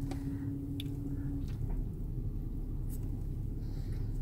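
Car idling, heard from inside the cabin: a low steady rumble, with a faint steady hum that stops about a second and a half in, and a few faint clicks.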